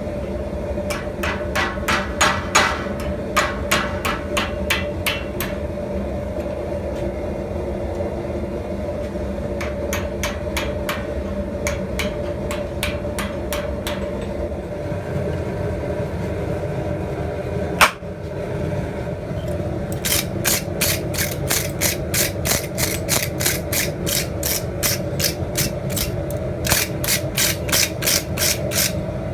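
Hand hammer striking hot steel on an anvil in three runs of rapid blows, about four or five a second, with a single sharp knock midway. A propane forge runs underneath with a steady roar.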